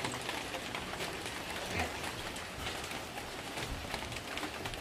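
Rain pattering steadily, an even hiss sprinkled with many small drop ticks.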